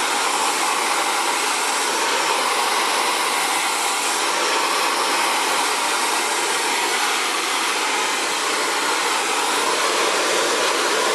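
Xtava Allure 2200-watt ionic ceramic hair dryer running steadily, a constant rush of air as it blows out natural curly hair.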